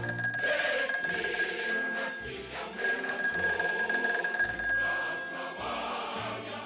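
A desk telephone rings twice, each ring about two seconds long with about a second's pause between, over background music.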